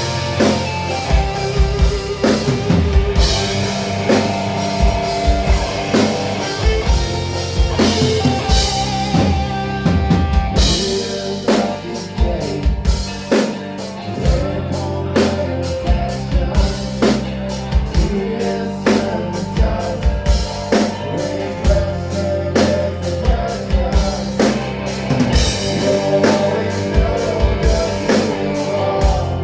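Rock band playing: a drum kit keeps a steady beat under sustained guitar and bass, with the drum hits coming faster and denser from about ten seconds in.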